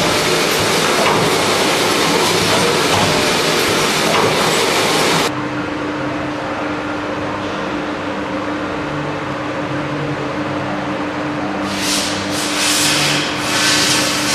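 Combi-Estro automatic folding gluing machine running, a steady dense mechanical clatter that cuts off abruptly about five seconds in. A quieter steady hum follows, with a few swishing sounds near the end.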